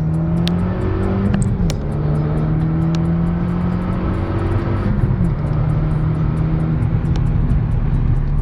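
Renault Mégane R26's 2.0-litre turbocharged four-cylinder engine running hard at fairly steady revs, with a quick gear change about a second and a half in and another shift in pitch about five seconds in.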